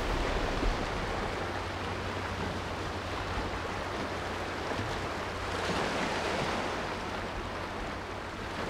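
Sea surf washing onto a sandy beach: a steady hiss of waves, swelling slightly about six seconds in.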